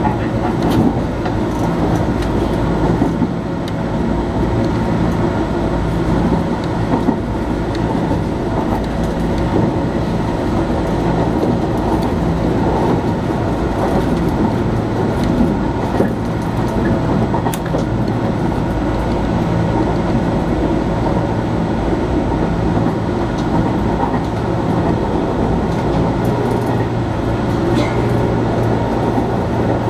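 JR Kyushu 415 series electric multiple unit running along the line, heard from inside the train at the front cab. It makes a steady rumble of wheels on rail with a steady low hum and a few faint clicks.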